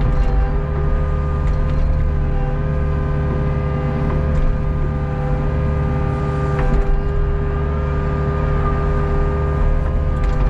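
Hitachi ZAXIS 48U mini excavator's diesel engine and hydraulics running steadily, a constant low rumble with a steady whine over it, as the boom is held and the upper structure swings round.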